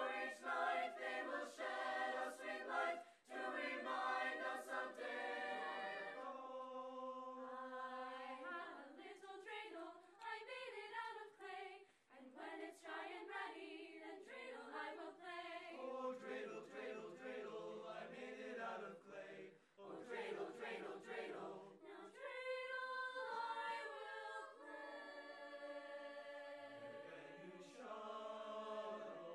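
High-school madrigal choir of mixed voices singing a cappella in several-part harmony, with brief breaks between phrases a few times.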